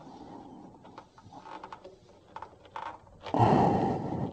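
A loud rush of breath across the microphone a little past three seconds in. Before it come faint clicks and creaks from a PVC discharge pipe being turned by hand into a water heater's relief valve.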